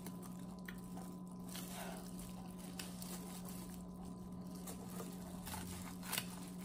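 Scissors snipping through a king crab leg's shell: a few faint, scattered snips and clicks, over a steady low hum.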